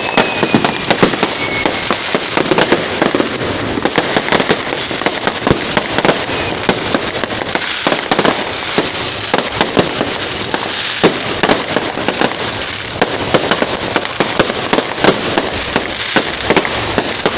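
Firecrackers going off in rapid, continuous succession: a dense crackle of pops with louder bangs scattered throughout.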